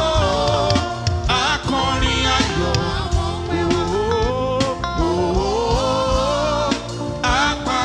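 Live church praise band playing, with a sustained melodic lead line bending up and down over steady bass and keyboard accompaniment.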